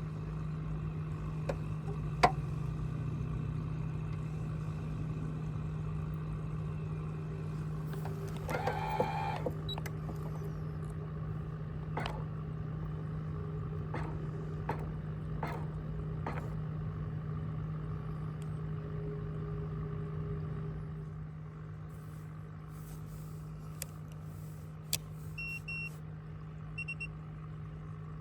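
Steady low hum of a boat's motor running, with a few sharp clicks scattered through it. Near the end come two pairs of short, high electronic beeps.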